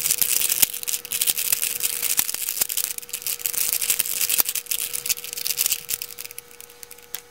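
Plastic pieces of a 3x3x2 domino barrel puzzle clicking and clacking rapidly as its layers are twisted by hand, the clicks thinning out and getting quieter near the end.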